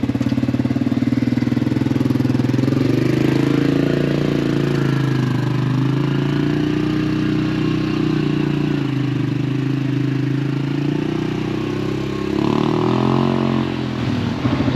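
Yamaha Grizzly ATV's single-cylinder engine running as it is ridden, its pitch rising and falling with the throttle.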